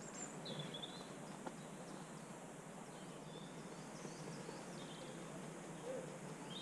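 Faint outdoor background noise with a bird chirping now and then.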